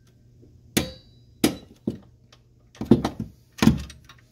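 Irregular sharp metallic clanks and knocks of hand tools, wrench and sockets, being worked and handled in a truck's engine bay, about half a dozen in all, the loudest pair about three seconds in.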